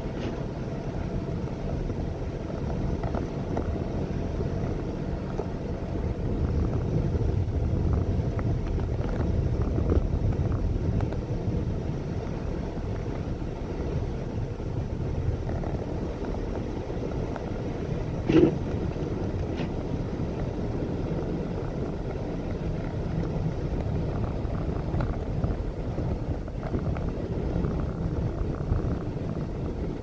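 Steady low rumble of a car driving on a snow-covered highway, heard from inside the cabin: tyre and road noise with the engine. One brief louder knock about eighteen seconds in.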